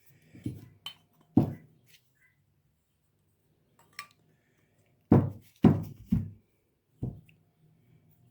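Metal dental flask and its clamp knocking together in about six heavy clunks as the packed flask is fitted into the clamp for pressing the acrylic: two near the start, three in quick succession past the middle, and one more shortly after.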